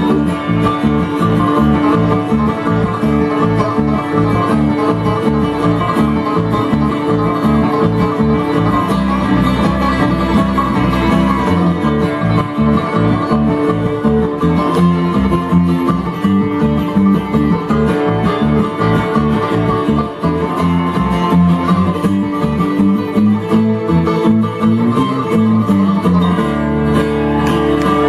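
Bluegrass band playing an instrumental passage, with fast, steady banjo picking over guitar.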